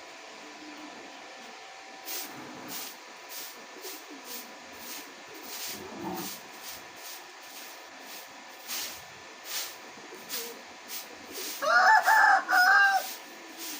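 A rooster crowing once, a loud arched call about twelve seconds in. Before it, a run of short sharp ticks comes roughly every half second.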